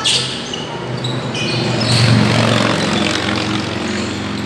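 A motor vehicle engine passing, its low hum swelling about two seconds in and then easing off. Over it come basketball-game sounds: ball bounces and brief sneaker squeaks on the court.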